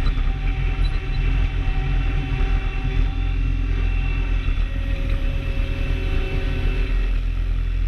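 A loader's engine running steadily while the machine drives with a full bucket of manure and raises it, a continuous low rumble.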